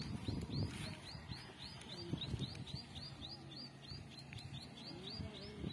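A bird repeating a short high chirp over and over, about four to five times a second, without a break. Beneath it, goats browsing a leafy shrub make irregular rustling and crunching as they tear and chew the leaves.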